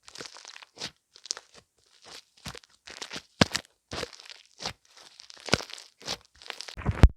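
Irregular short crunching and crinkling noises, a few a second, with a sharp knock near the end.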